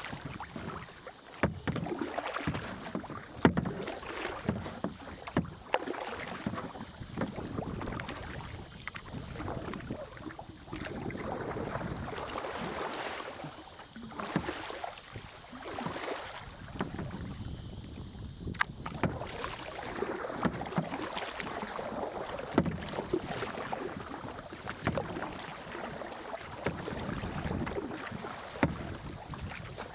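Kayak paddle strokes dipping and splashing in the water, about one stroke every two seconds, with a sharp knock now and then.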